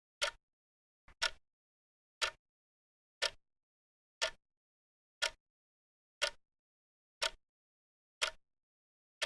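Clock ticking once a second: short, sharp ticks with dead silence between them, one tick about a second in doubled.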